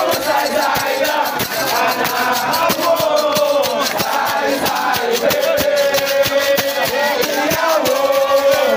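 A crowd singing and chanting together over fast rattling percussion.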